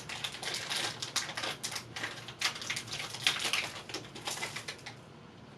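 Plastic snack wrapper of a wafer being handled and torn open: a rapid, irregular crinkling that dies down about five seconds in.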